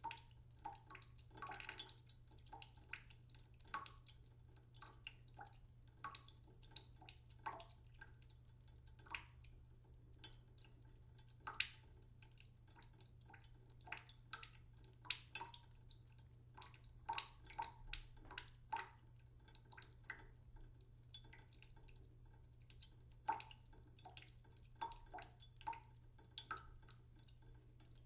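Small water drops dripping and plinking irregularly, a few a second, over a faint steady low hum.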